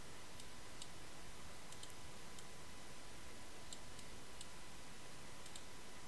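Faint, sharp computer mouse clicks, about a dozen scattered irregularly with some in quick pairs, over a steady low hiss.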